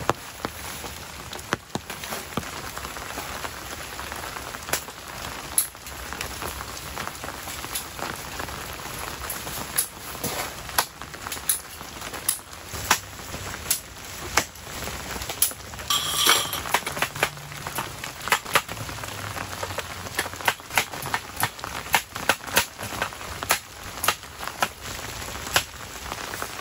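Steady rain with many loud, irregular drops clicking on a nearby surface. About sixteen seconds in there is a brief high-pitched sound, the loudest moment.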